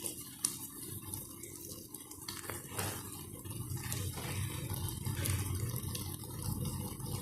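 Beaten egg and Malabar nut leaf juice cooking in hot ghee in a deep pan, with faint sizzling and bubbling and scattered small pops as the mixture heats toward a boil.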